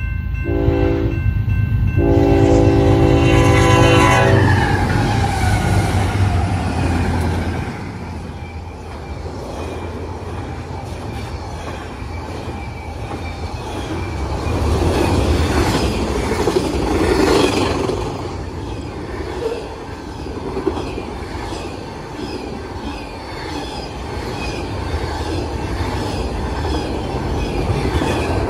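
BNSF intermodal train's locomotive horn blows a short blast, then a long blast that drops in pitch as the engine rushes past the grade crossing. The rumble and clatter of double-stack container cars passing at speed follow. A crossing bell rings underneath.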